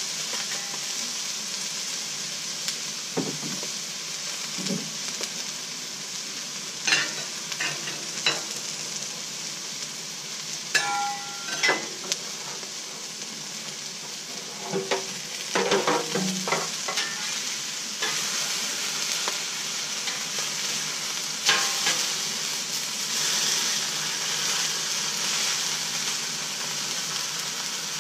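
Food sizzling steadily on a hot Blackstone flat-top griddle, with metal utensils scraping and clinking on the steel cooktop in short clusters several times.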